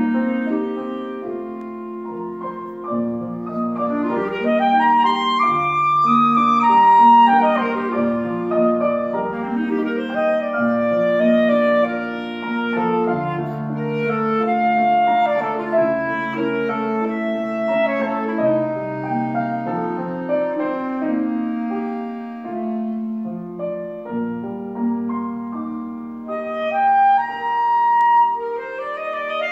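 Clarinet playing a lyrical melody over a piano accompaniment, with a quick rising run near the end.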